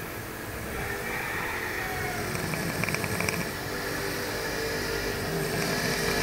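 Snoring: steady breathing noise with a fluttering rattle about halfway through.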